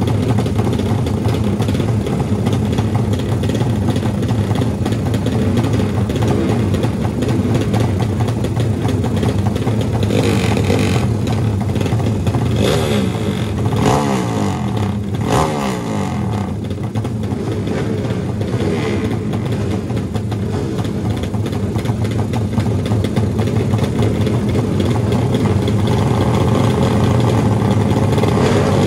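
Drag-race motorcycles' engines running at the start line: a steady idle, with a few revs that rise and fall in pitch about halfway through.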